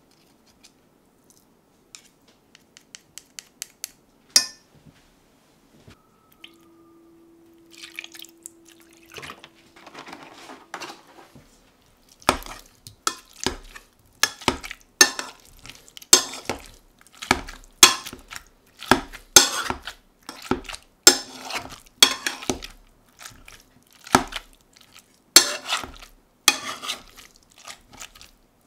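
Boiled parsnips being mashed with butter and miso paste in a stainless steel saucepan. A few light clicks and one sharp knock come first. From about halfway through, a spatula squashes the soft parsnip and scrapes against the metal pan about once a second.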